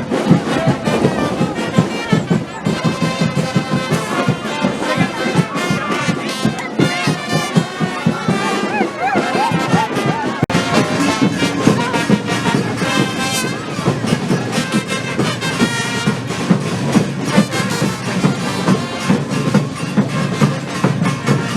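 Charanga brass band playing carnival music, trumpets and trombones over a steady drum beat.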